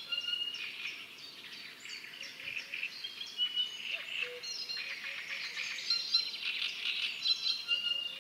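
Several birds singing and calling at once: a dense chorus of overlapping short whistled notes and chirps.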